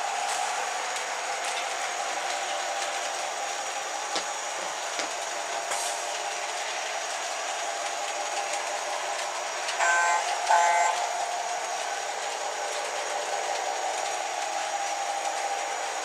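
O gauge LionChief Plus model trains running on three-rail track, a steady rolling sound with a few light clicks. About ten seconds in, a locomotive's onboard sound system gives two short pitched signal blasts.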